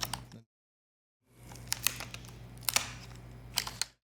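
Plastic spudger prying a Dell 3100 Chromebook's plastic display bezel away from the screen and its adhesive: a handful of sharp plastic clicks and crackles over a faint steady hum. The sound cuts out completely about half a second in, returns just after a second, and cuts out again just before the end.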